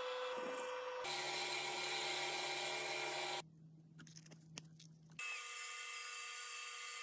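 Power-tool whirring in short clips that change abruptly, as from grinding or sanding metal. About three and a half seconds in there is a quieter stretch of under two seconds with a few light clicks, then the whirring returns.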